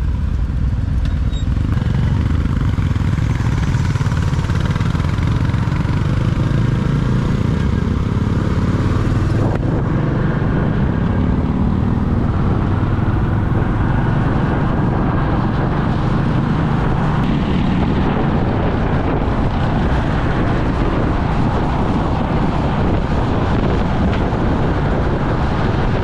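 A motorcycle being ridden, heard from the rider's mic: steady engine drone mixed with wind noise, with no change in pace.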